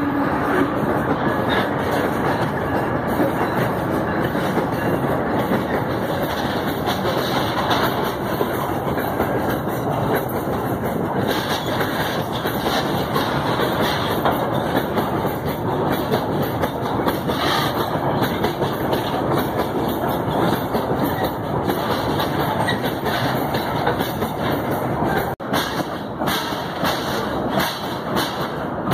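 Freight train of open iron-ore wagons rolling past at close range: a steady rumble of steel wheels on the rails with a continual clatter of wheel clicks.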